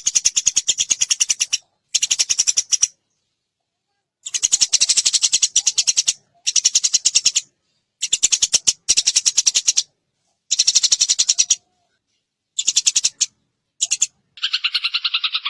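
House sparrow chattering in rapid, high-pitched bursts of clipped chirps, each burst one to two seconds long, broken by abrupt silent gaps. About a second before the end, a lower, denser rattling trill takes over.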